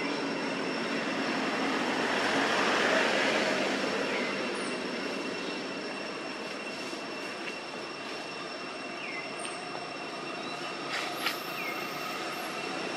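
Steady shrill drone of forest insects, swelling a few seconds in, with a few short, faint falling chirps over it.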